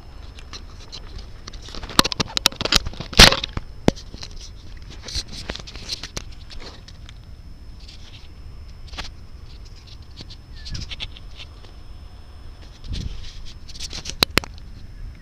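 Dry grass and dead leaves crackling and rustling underfoot and under handling, with irregular sharp clicks and knocks; loudest about three seconds in and again near the end.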